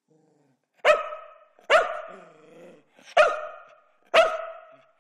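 A black dog barks four times, about a second apart, counting out an answer on command.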